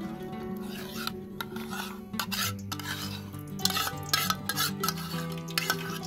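Metal spoon scraping and clinking against an aluminium bowl while scooping soft fat into a large iron frying pan. It is a run of short scrapes and sharp clinks starting about a second in.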